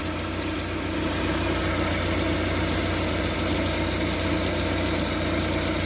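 VAZ 2112's 1.6-litre 16-valve four-cylinder engine idling steadily, with its alternator belt drive running.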